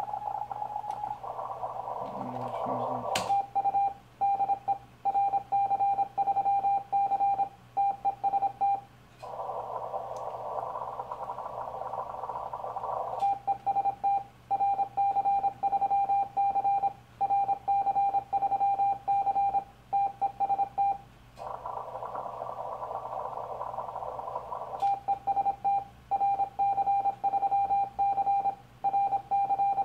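Yaesu FT-1000MP transceiver's Morse sidetone, a steady high beep keyed in dots and dashes as a CQ call is sent on 40 m CW. Three times it gives way to a few seconds of band hiss heard through the receiver's narrow CW filter while listening for replies, and a click marks each return to transmit.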